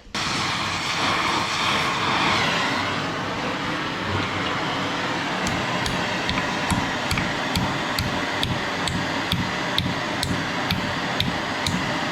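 Steady rushing hiss of a gas torch flame heating a steel wrench so it can be bent. It starts abruptly. From about halfway, sharp ticks repeat about three times a second.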